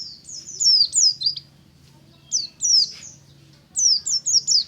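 Pleci (white-eye) singing: three quick runs of high chirping notes, each note sliding down in pitch.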